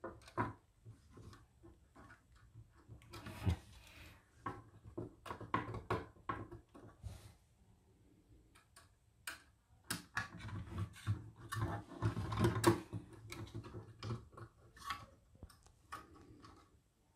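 Plastic parts of a VW California camping control unit being handled and fitted together: irregular small clicks, knocks and rustles as the fascia and housing are pushed and seated, with the pieces knocking on a wooden tabletop. The clicks come thickest in the second half.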